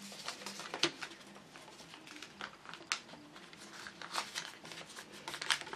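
Folded sheet of letter-size paper rustling and crinkling under the fingers as creases are pressed into it, with scattered short, sharp crackles at irregular intervals.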